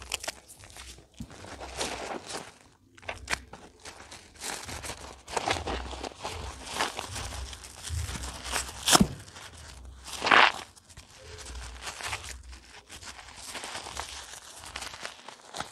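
Soaked, softened soap bars squeezed and crushed by rubber-gloved hands in thick suds: irregular wet squishing and crackling of foam. A sharp squelch comes about nine seconds in, and a louder, longer one about a second later.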